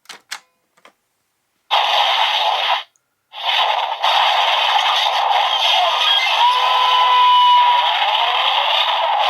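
Kamen Rider transformation-belt toy: a few plastic clicks as the buckle is worked, then its electronic sound effect through the toy's small speaker. A short noisy burst comes first, then a long continuous effect with faint gliding tones.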